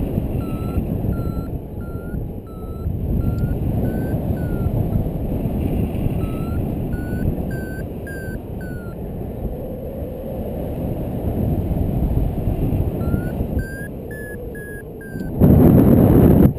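Paragliding variometer beeping in three runs of short, evenly spaced beeps, about two a second, the pitch stepping higher as each run goes on: the climb tone that signals the glider rising in lift. Wind rushes over the microphone throughout, loudest near the end.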